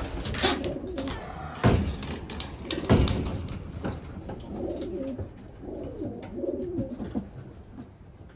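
Domestic pigeons cooing in a loft, a low warbling coo from several birds, with two sharp knocks, about two and three seconds in, as the loudest sounds.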